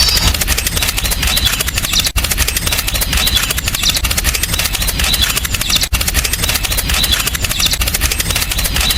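Homemade mini tractor machine running steadily with a rapid, even chugging like a small engine, with two very brief breaks.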